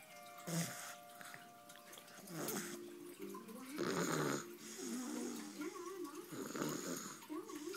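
Snoring: about four slow, noisy snore breaths, the loudest about halfway through, with a wavering pitched sound in the background from about halfway on.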